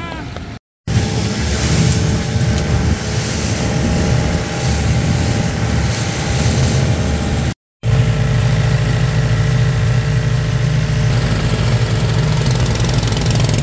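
Boat engine running steadily under way, a loud low drone with a rushing hiss above it. The sound cuts out for an instant twice.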